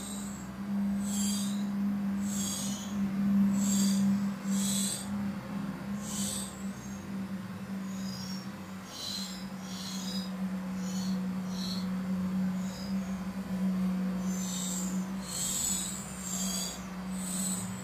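Great tit nestlings begging with short high-pitched calls, one every half second or so, coming thicker near the end. A steady low hum runs underneath.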